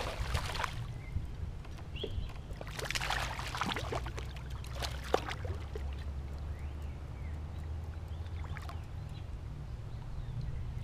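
Water splashing as a hooked bass thrashes at the surface beside the kayak, in two spells: briefly at the start, then again a few seconds in as it is brought to hand. A steady low rumble runs underneath.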